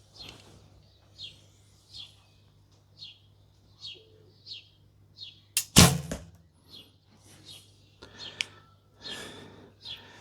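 A bird chirps repeatedly in short high calls. About six seconds in, a recurve bow with wooden Nik'a S2 Windstorm limbs is shot once: a single sharp release of the string, the loudest sound here.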